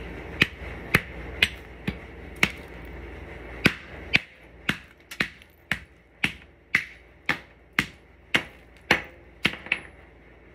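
Hammer repeatedly striking and smashing pieces of rock on a floor: about eighteen sharp blows, roughly two a second, with a brief pause after the first five.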